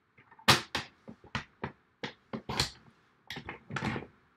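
Card stock and a paper trimmer being handled and used to cut card: a quick series of about a dozen sharp taps and knocks, the loudest about half a second in, with a couple of longer scrapes near the end.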